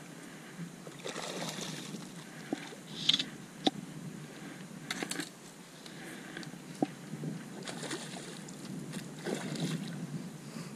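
Water splashing and sloshing around a kayak as a hooked redfish thrashes close by, in short splashy bursts every second or two, with a few sharp light knocks.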